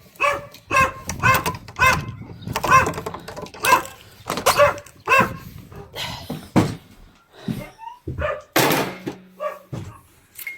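A dog barking over and over, about two barks a second, thinning out after the first five seconds. About nine seconds in there is a loud thump with a short steady creak, like a door.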